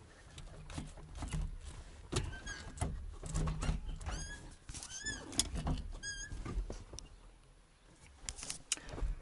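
Scattered clicks, knocks and rustles of hands working around a VAZ-2106's gear lever and its newly fitted boot, then tools being handled on the cabin floor. Three short high-pitched squeaks come around the middle.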